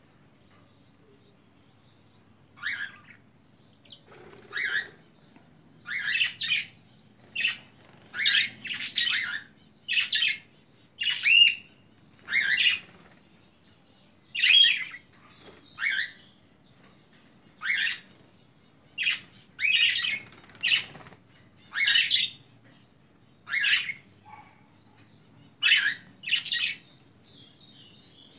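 Budgerigars calling: a string of short, chirping and squawking warbles, one every second or two, their pitch sliding up and down.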